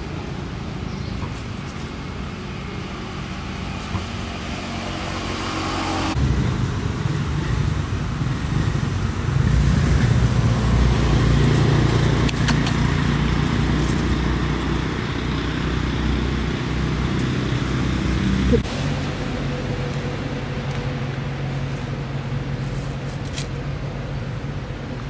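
A motor vehicle's engine running with a low, steady hum. It grows louder for several seconds in the middle, then drops back.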